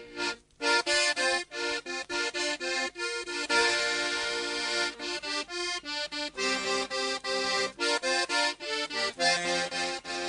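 Sesotho accordion music: an accordion plays rhythmic chord stabs and quick melody runs, with a brief break about half a second in.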